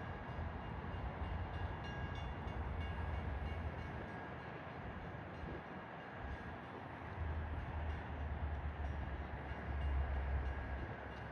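Metra commuter train at the station, running with a steady noisy rumble and faint high whining tones. Gusts of blizzard wind buffet the microphone with a low rumble that comes and goes, dropping away in the middle and returning strongly near the end.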